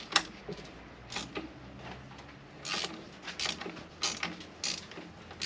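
Wrench working the mounting bolts of a new alternator on a marine diesel engine: a run of short, irregular metallic clicks and scrapes.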